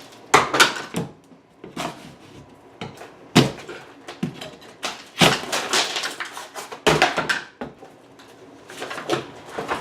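Hand demolition work: irregular knocks, clunks and scraping clatter, with sharp bangs about half a second in, near 3.5 s, at about 5 s and at about 7 s.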